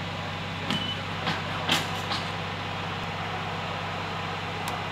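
A large truck engine idling steadily in the background as a low hum. A few short metallic clicks and clanks come in the first couple of seconds, and one more comes near the end.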